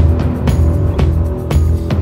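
Background music with a steady drum beat over heavy bass, about two beats a second.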